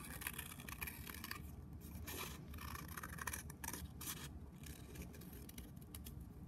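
Scissors cutting slowly through folded paper: a faint, irregular run of short snips with the paper rustling between them.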